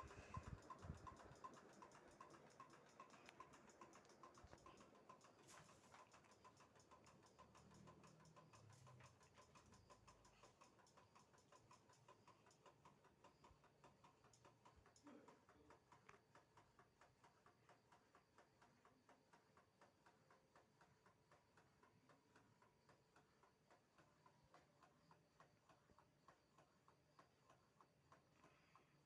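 Industrial ceiling fan ticking faintly and evenly, about two clicks a second, growing fainter, over a faint steady hum.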